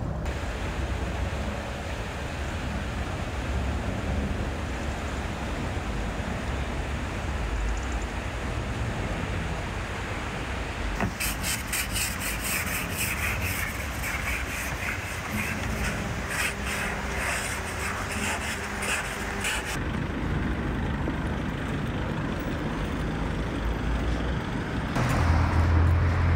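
Ice scraper scraping frost off a van's windscreen in rapid repeated strokes for about nine seconds, over a steady outdoor rumble. Near the end a low hum comes in.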